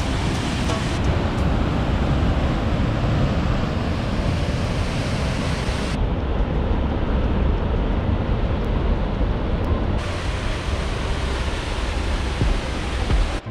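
Rushing water of a mountain waterfall and river: a loud, steady, even rush whose tone shifts abruptly a few times.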